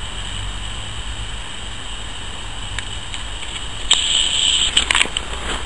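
Outdoor riverbank background with a steady low rumble. About four seconds in comes a short, loud burst of crackling noise and a few sharp clicks.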